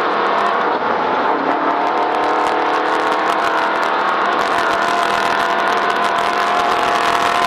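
Race vehicle's engine running at steady high revs while driving fast over rough ground, with a constant clatter of knocks and rattles over the top.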